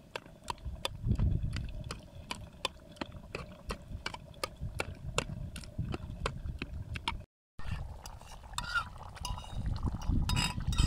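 A pestle pounding cooked meat, potato and beans for abgoosht on a paper plate: soft dull thuds under a run of sharp clicks about three a second. After a short break, a fork scrapes the mash off the plate into the pot with light clinks.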